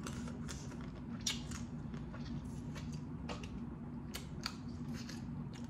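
Close-miked eating of steamed blue crabs: scattered small crisp clicks and snaps as shell is picked apart, with lip smacks from licking fingers. A faint steady hum runs underneath.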